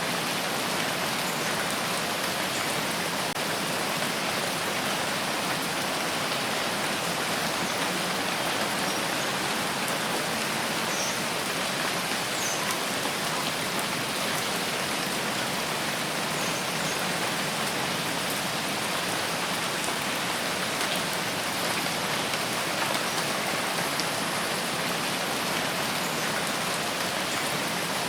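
Steady rain falling, an even hiss of many drops with faint individual drips here and there.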